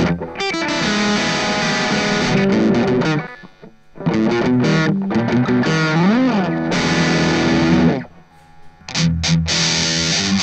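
Electric guitar played through the M-vave Mini-EFX pedal on its British-style distortion setting: distorted riffs broken by two short pauses, with a string bent up and back down about six seconds in. After the second pause, near the end, the playing resumes on the pedal's MT1-style distortion setting.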